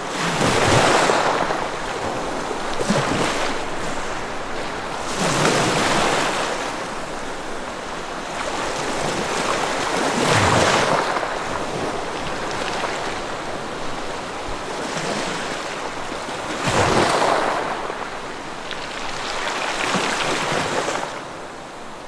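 Ocean waves breaking on a shore: a steady surf hiss with a wave surging up and washing back every few seconds, about five or six in all.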